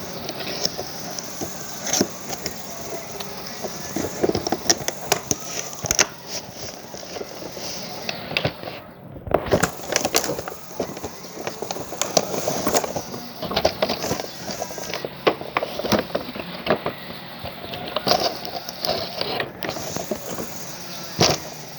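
Plastic toy and its packaging being handled: irregular clicks, knocks and rustling.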